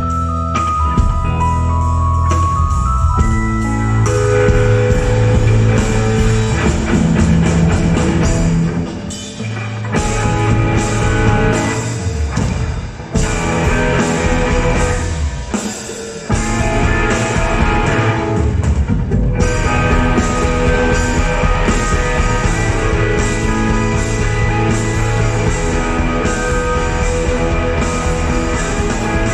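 Live band playing rock music with guitar and drum kit, an instrumental passage without singing. The music drops back briefly a few times about halfway through.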